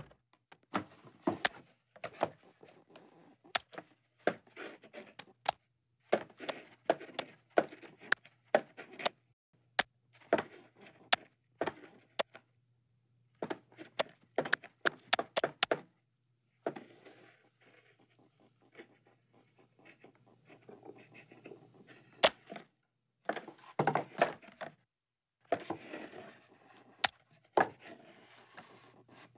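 Cartoon sound effects of scuffling and a cardboard box being handled: many short, irregular taps and knocks, with a faint steady low hum underneath.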